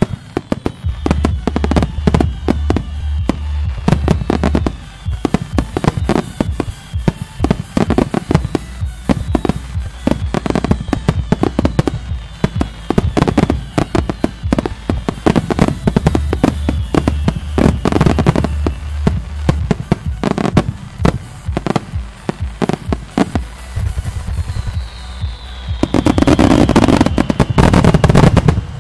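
Finale barrage of aerial firework shells: bangs and cracks in rapid succession, mixed with whistling shells that fall in pitch. About 26 s in, a dense, very loud crackling volley builds and then stops abruptly near the end.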